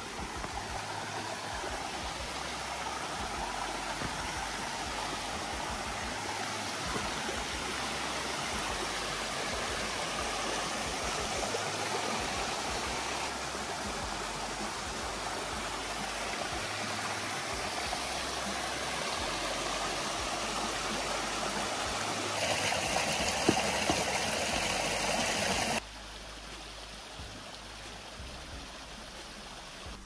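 Mountain stream rushing over granite slabs and small cascades, a steady wash of water noise. It grows louder for a few seconds near the end, then drops off abruptly.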